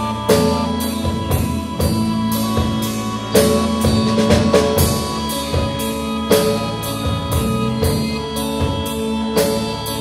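Live instrumental rock band playing: electric guitar, bass guitar and drum kit, with the drums keeping a steady beat of about two strokes a second under held guitar and bass notes.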